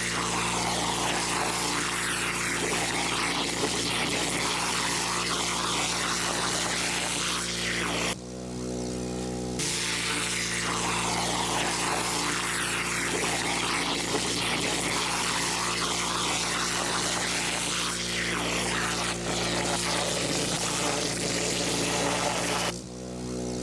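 High-flow pressure washer (7 gallons a minute at 4,000 PSI) running steadily while its turbo nozzle blasts a water jet into the soil to cut a trench. The jet's rushing hiss stops twice, for about a second and a half around eight seconds in and again near the end, leaving only the engine's steady drone.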